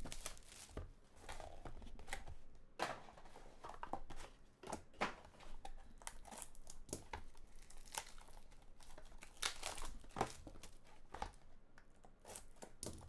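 Card pack wrappers crinkling and tearing, with cards being handled, in irregular short crackles.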